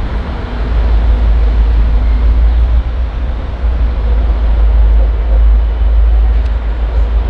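V/Line N-class diesel-electric locomotive approaching with its passenger train, its diesel engine running with a loud, steady, deep rumble.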